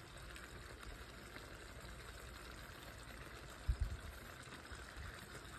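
Faint, steady background hiss, with a couple of short low thumps a little under four seconds in.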